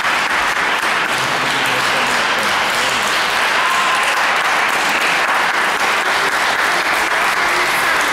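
Concert-hall audience applauding, a dense, steady clapping that holds at an even level throughout.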